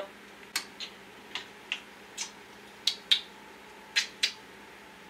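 Sharp, scattered clicks and taps of kitchen prep work, such as a knife or utensils on a cutting board and counter. There are about nine of them, some in quick pairs.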